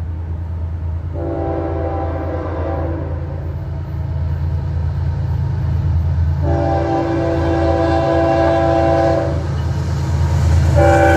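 A diesel freight locomotive's air horn sounds two long blasts and then begins a short third, the opening of the long-long-short-long grade-crossing signal. Under the horn, the approaching train's low engine rumble grows steadily louder.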